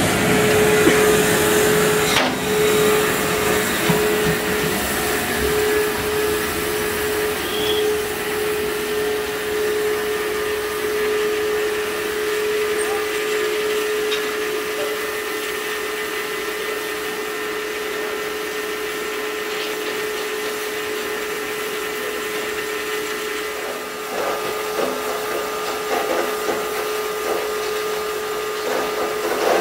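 Saxon VII K narrow-gauge steam locomotive standing with steam hissing steadily under a steady whine. A few faint knocks come near the end.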